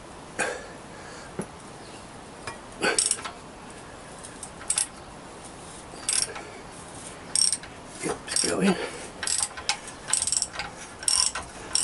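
Socket ratchet clicking on its back-swings while an exhaust header bolt is undone, a few clicks at first, then quicker runs of clicks from about two-thirds of the way in.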